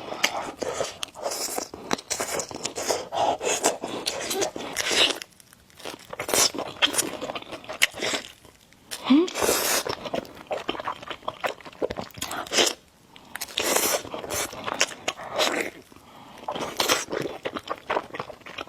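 Close-miked eating of spicy noodles: repeated noisy slurps and wet chewing with mouth clicks, in irregular bursts with short pauses between them.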